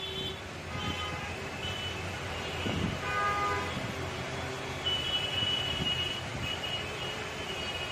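Steady road-traffic rumble with vehicle horns tooting several times. The fullest horn blast comes about three seconds in.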